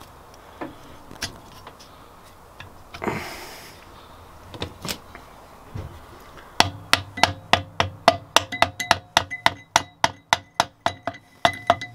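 A few light clicks and a brief scrape, then, from about six and a half seconds in, rapid mallet taps on a finned engine cylinder barrel, about four or five a second, each with a short metallic ring. The barrel is being tapped over the piston and rings held in a ring compressor, and it is not yet going on.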